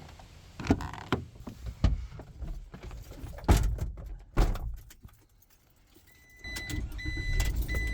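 Several knocks and clunks inside a vehicle, then the vehicle's warning chime beeping repeatedly over a low engine rumble.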